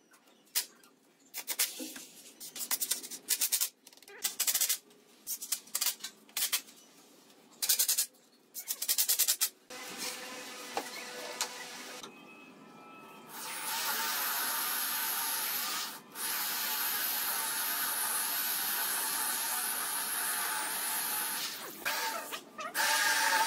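Cordless impact driver running in many short bursts, driving screws to fix caster wheels onto a wooden pallet. After that, a corded electric drill runs steadily for several seconds with a high whine, boring into the pallet's pine boards, and starts up again near the end.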